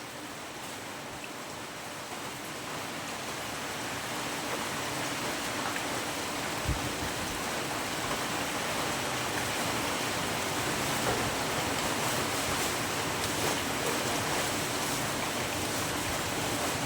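Steady rain hissing, growing slowly heavier over the first few seconds and then holding, with a few faint ticks.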